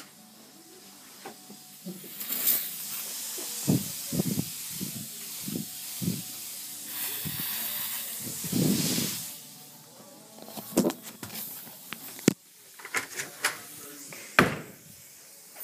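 Aerosol air-freshener can (Febreze) spraying in a long hiss lasting several seconds. It is followed by sharp knocks and handling noise.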